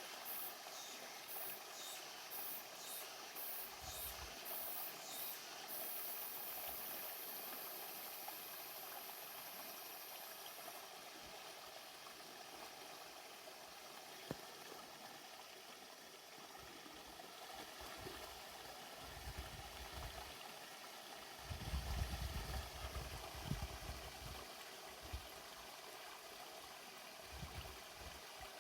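Steady trickle of running water. In the first several seconds there is a series of very high chirps, followed by a high buzz that fades out about eleven seconds in. Around twenty seconds in come low rumbling gusts of wind on the microphone.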